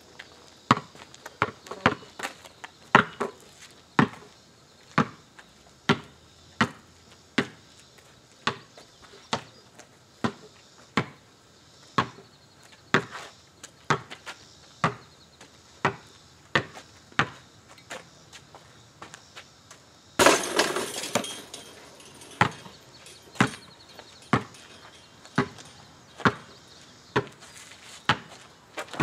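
Basketball dribbled on an asphalt driveway, bouncing about once a second with some quick double bounces. About twenty seconds in, a sudden loud noise lasts a second or so.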